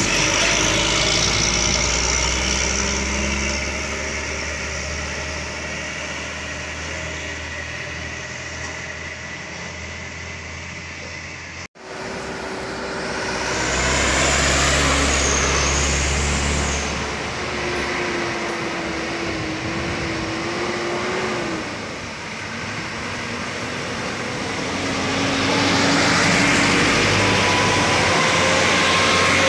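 Diesel truck engines labouring in low gear as heavy trucks crawl up a steep grade and pass close by. The sound cuts out for an instant about twelve seconds in, and another truck's engine takes over, growing louder near the end.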